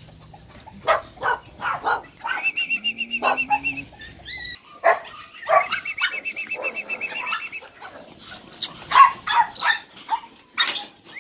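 Dogs barking repeatedly in short sharp calls, loudest near the end, with a high, rapid trilling call heard twice.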